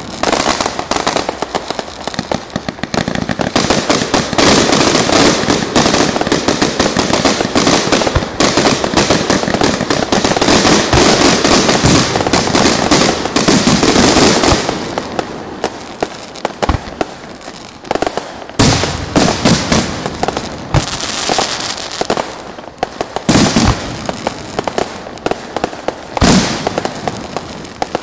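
Electrically fired firecrackers and fireworks going off in a dense rapid crackling barrage for about the first fifteen seconds, thinning out briefly, then returning in clustered rattling bursts.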